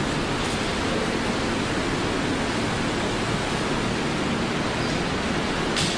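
Steady, even hiss of background room noise with no voices, and one brief tick near the end.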